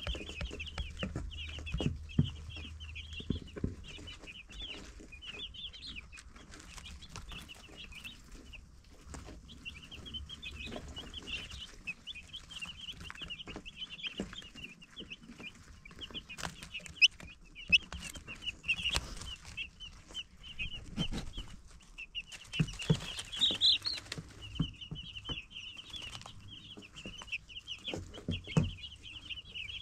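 Baby chicks peeping continuously, a dense chorus of quick, high chirps with only brief lulls, with scattered sharp taps and knocks among them.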